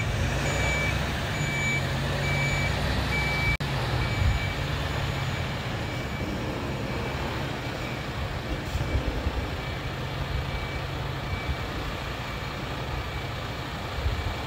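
Mercedes-Benz Arocs garbage truck reversing: its reversing alarm beeps about twice a second over the steady running of its diesel engine. The beeps grow fainter about halfway through.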